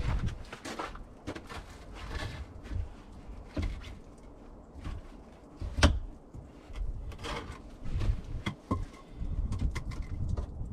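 Irregular knocks and thuds with rustling, the sharpest single knock about six seconds in.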